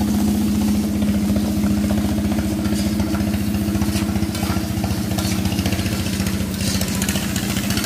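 A small engine running steadily at idle: a constant low hum with a rapid, even pulse. A metal spatula clinks and scrapes faintly in a wok over it.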